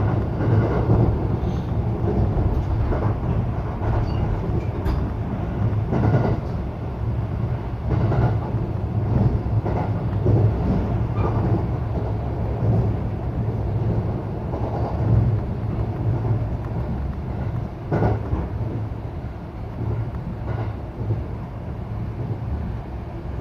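Local electric train running at speed, heard from inside the passenger car: a steady low rumble of wheels and running gear on the rails, with occasional sharp knocks.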